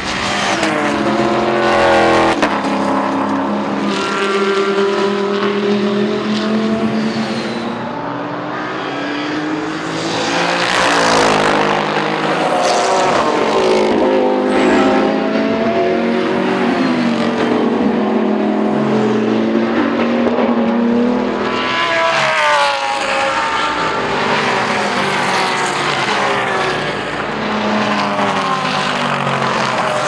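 GT race cars passing one after another, engines revving hard. The engine notes climb as the cars accelerate out of corners and drop as they downshift, with loud surges as cars go by about a third of the way in and again past two thirds.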